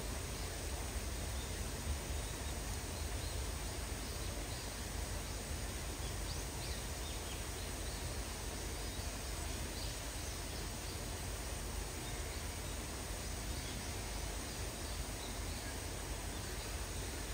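Steady hiss of falling rain with a low rumble underneath and faint scattered ticks.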